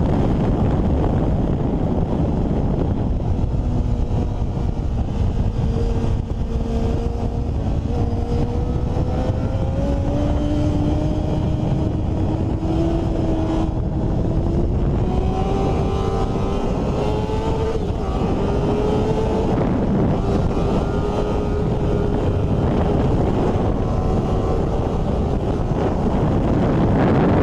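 Wind rushing over an onboard camera microphone on a sport motorcycle at racing speed. Underneath it the engine is faintly audible, its pitch climbing in steps as the bike accelerates out of a corner.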